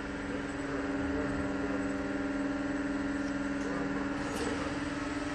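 Large industrial compressor train running: a steady machine hum with two constant low tones over a even hiss.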